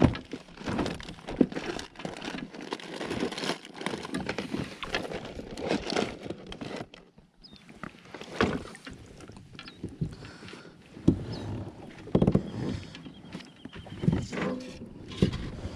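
Irregular knocks, bumps and rubbing from handling on a small fishing boat, with water and hull noise; a few sharper knocks stand out in the second half.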